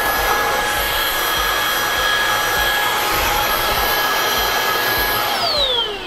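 Eufy HomeVac S11 Reach cordless stick vacuum running steadily, a rush of air with a high motor whine. About five seconds in it is switched off and the motor spins down with a falling whine.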